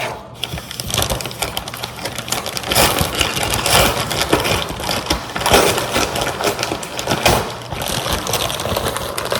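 Packaging bag rustling and crinkling, with quick irregular crackles, as it is pulled and torn open by hand.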